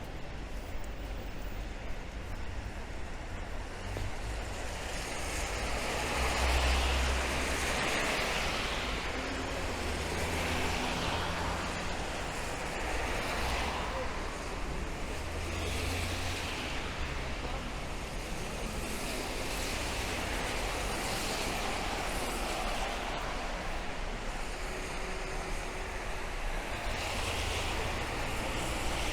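City traffic on rain-wet roads: cars passing one after another, their tyres hissing on the wet asphalt, each pass swelling and fading over a few seconds above a low engine rumble.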